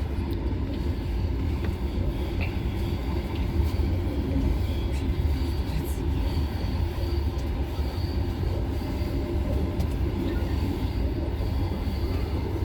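Steady low rumble of a moving vehicle underway, with no distinct events.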